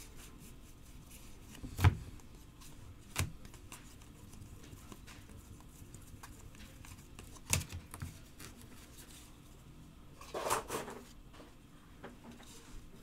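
Trading cards being handled by hand: a few sharp taps and clicks as card stacks are squared and set down on a table, the loudest about two seconds in, and a short rustle of cards a little after ten seconds.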